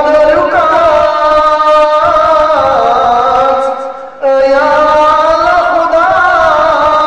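A man singing a Balti-language qasida, a devotional Shia chant, in a single voice that holds long notes gliding up and down. The voice breaks off for a breath about four seconds in, then carries on.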